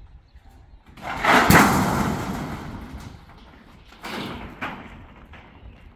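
A heavy scrape building to a loud thud about one and a half seconds in, then a softer scrape and knock later on.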